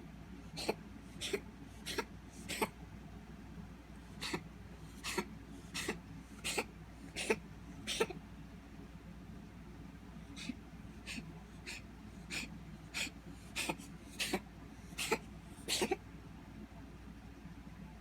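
A cat making short, sharp, cough-like noises in quick series, about three every two seconds, in three runs with short pauses between.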